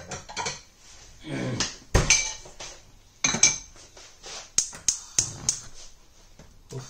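Stainless-steel pot clinking and knocking on the gas hob, then a gas burner's igniter clicking about three times a second as the burner is lit.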